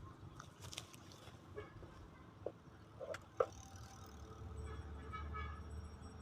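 Faint scattered clicks and knocks, with a low hum that sets in about halfway through, just before a motorcycle is started.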